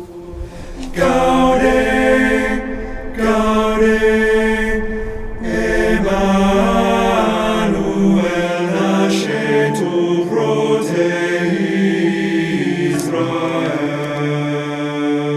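Choral chant as soundtrack music: several voices holding long notes that move in steps, coming in about a second in.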